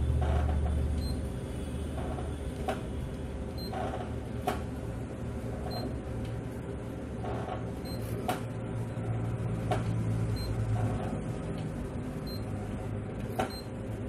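Office copier humming steadily while its touchscreen panel is pressed, with several short sharp clicks as menu buttons are tapped.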